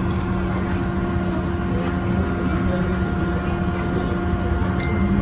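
Steady hum and rumble of jet aircraft on an airport ramp, with a constant low drone that holds its pitch.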